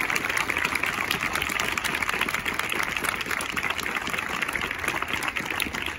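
Audience applauding: a dense, steady patter of many hands clapping that eases slightly near the end.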